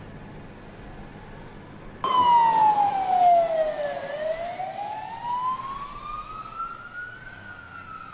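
Fire engine siren wailing: it starts abruptly about two seconds in and makes one slow sweep, falling, then rising slowly to a high pitch. Before it comes in there is only a steady low hum and hiss.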